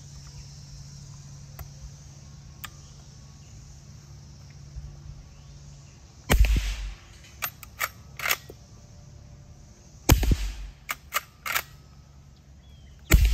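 Three suppressed shots from a Smith & Wesson Model 1854 lever-action rifle in .44 Magnum with a SilencerCo Hybrid 46 suppressor, firing 400-grain subsonic rounds, about six, ten and thirteen seconds in. Each shot is followed by a few quick metallic clicks as the lever is worked to chamber the next round.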